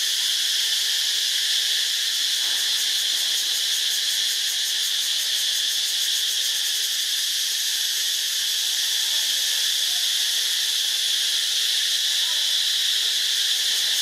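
Steady chorus of forest insects: a continuous high-pitched shrill hum that holds an even level without a break.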